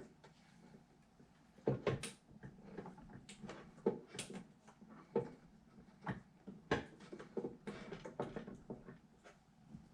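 Irregular clicks, taps and knocks of hard parts being handled, about a dozen over several seconds.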